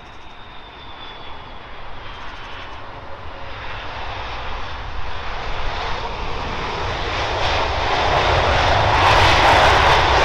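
Twin jet engines of a Delta Airbus A330-300 on its landing roll just after touchdown: a steady rushing engine noise that grows louder throughout and is loudest near the end as the airliner comes past.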